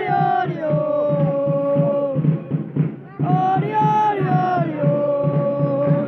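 Football supporters singing a drawn-out chant in unison, in two long held phrases with a short break about three seconds in, over a steady low beat.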